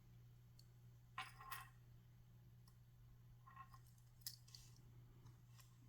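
Near silence broken by a few faint metallic clicks and clinks, about a second in and again past the middle: a small Swiss Army knife being handled, its tools and scales knocking lightly.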